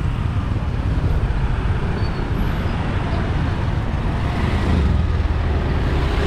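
Steady outdoor street noise with a low traffic rumble, a little louder near the end.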